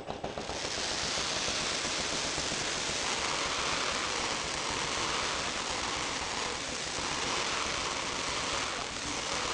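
Fireworks overhead: a sudden bang, then a steady, dense crackling hiss of falling crackling stars, like heavy rain.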